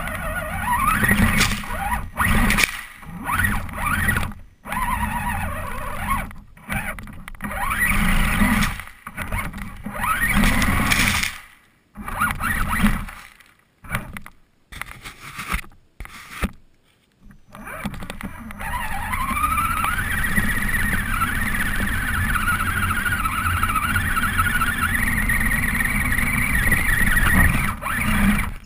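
RC crawler truck's motor and drivetrain, heard from on board. For the first eighteen seconds it runs in short bursts of throttle with pauses, each burst a rising whine. After that it runs continuously with a whine that wavers in pitch as the wheels dig through dirt and over rocks.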